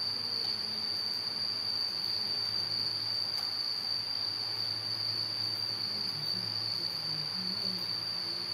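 Steady high-pitched trilling of insects such as crickets or cicadas, unbroken throughout, over a low steady hum.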